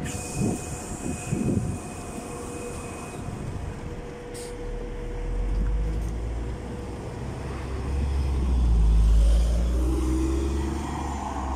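NefAZ 5299 city bus shutting its doors with a hiss and a couple of knocks. Its engine then runs louder as it pulls away, the low rumble building to a peak about nine seconds in and easing off as it goes.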